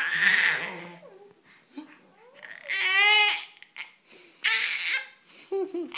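A baby's high-pitched squeals in a few short bursts, with breathy sounds between them.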